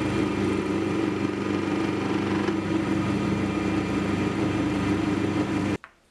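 Wood lathe running at speed, spinning a wooden sphere: a steady motor hum under a hiss of abrasive on the turning wood, with fine sanding dust flying off. It cuts off suddenly near the end.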